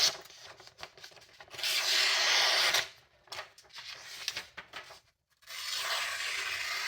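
A sharp kitchen utility knife blade drawn through material in long slicing strokes that make a hissing, tearing sound: one cut about a second and a half in, another starting about five and a half seconds in.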